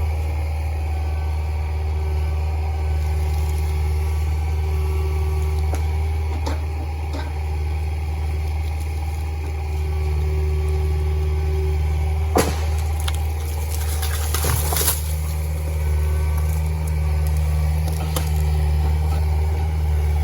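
A machine's engine running steadily at a constant speed, with a few sharp cracks or knocks over it, a cluster of them past the middle.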